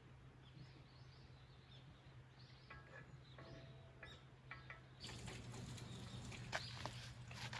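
Faint birds chirping in short calls over quiet outdoor ambience. About five seconds in, the background changes abruptly and gets louder, with a few sharp clicks and knocks.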